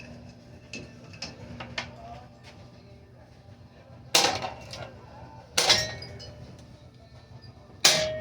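A metal pedestal-fan pole hitting a ceiling fan: three loud clanging strikes about four, five and a half and eight seconds in, each ringing briefly, the last leaving a lingering ring. Lighter clinks come before them, over a steady low hum.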